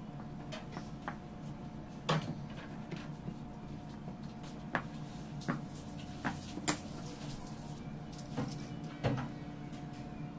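Scattered knocks and taps as hands and a rolling pin press fondant over a cake and bump the stone counter, about seven in all, over a steady background hum.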